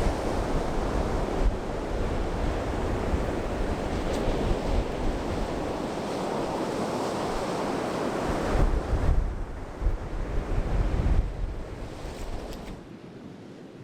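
Surf washing on the beach with wind buffeting the microphone in low rumbling gusts; the sound drops away sharply about a second before the end.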